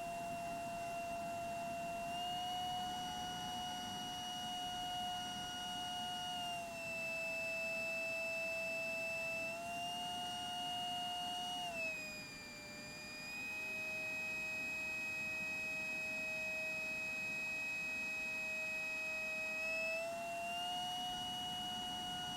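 Hoffman Magnetics Storm motor of an RC model jet whining in flight, a steady pitched tone that steps up about two seconds in, drops a few seconds later, rises again, dips lowest about halfway through and climbs back near the end as the throttle changes.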